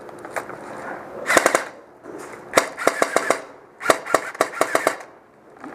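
Airsoft gun firing three short bursts of rapid shots, about eight a second.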